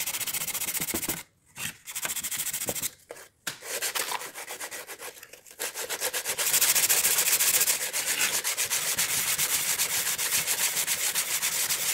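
Hand sanding of old weathered wood with sandpaper: quick back-and-forth rubbing strokes, broken by short pauses a few times in the first half, then running on without a break and loudest a little past the middle.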